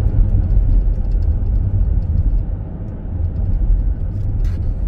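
Minivan driving at road speed, heard from inside the cabin: a steady low rumble of tyres and engine.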